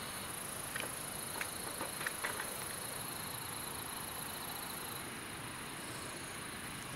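Steady chorus of summer insects, high-pitched, with a fine rapid trill running underneath, and a few faint clicks in the first half.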